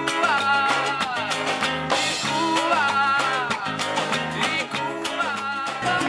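Latin-style band music: a man singing over strummed acoustic guitar, with a steady hand-drum rhythm from conga drums.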